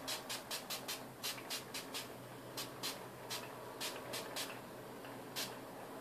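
Pump bottle of Avon makeup setting spray spritzed over and over: short, quick hisses, several a second at first, then more spaced out.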